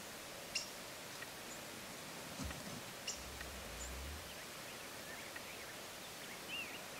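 Gould's wild turkey gobbler strutting, spitting and drumming: a low hum lasting about a second, midway. Faint bird chirps near the end.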